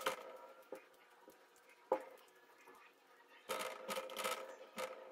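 Sticky slime being picked and rubbed off fingers: faint scattered sticky rubbing noises, a sharp click about two seconds in, and a busier patch of rubbing around four seconds.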